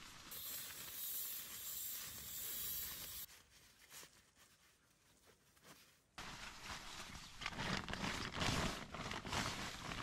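Nylon stuff sacks, a backpack and a down jacket rustling and crinkling as camping gear is packed by hand. The rustling comes in two stretches with a quieter pause in the middle, and the second stretch is louder.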